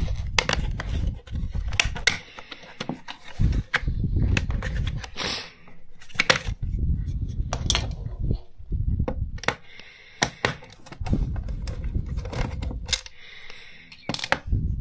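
Hard plastic clicking and clattering, with dull knocks and handling rumble, as a cordless vacuum's powered brush head is prised apart with a flat screwdriver and its plastic end cover comes off.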